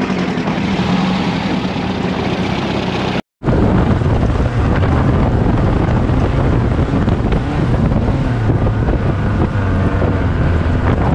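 Dune buggy engine running steadily, with wind buffeting the microphone. The sound cuts out completely for a moment about three seconds in, then picks up again.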